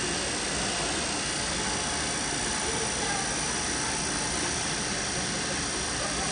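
Steady machinery noise from a running wiped-film short-path distillation system, its pumps and motors running continuously at an even level.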